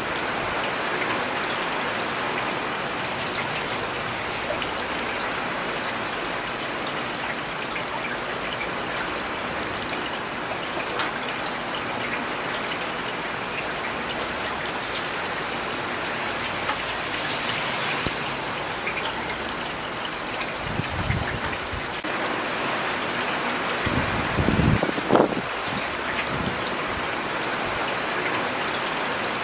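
Steady rain falling on hard surfaces, with individual drops pattering through the even hiss. Two brief low rumbling swells rise out of it about three-quarters of the way through.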